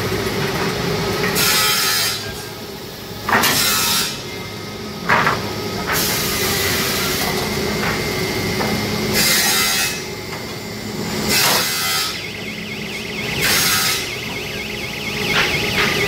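Pallet nailing and stacking machine running: a steady machine hum with a short hiss about every two seconds, and a couple of sharp knocks.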